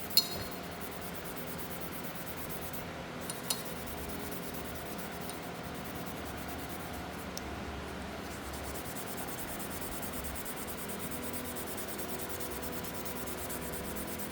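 Faint steady rubbing of a kitchen scrubbing pad against a rusty carbon-steel hand tool, with a sharp click just after the start and a smaller one about three and a half seconds in.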